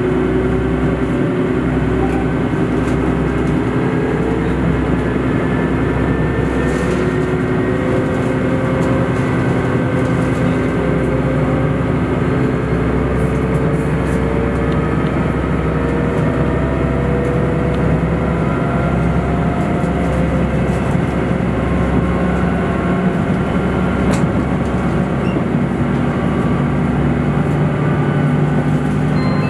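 Diesel engine of a JR Shikoku tilting limited express railcar running under power as the train accelerates away from the station, several tones rising slowly in pitch over a steady low hum, heard from inside the passenger cabin.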